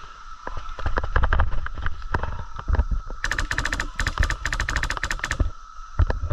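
Airsoft electric gun firing rapid full-auto bursts: a fast, even rattle of clicks starting about three seconds in and lasting about two seconds. Scattered single clicks and knocks come before it.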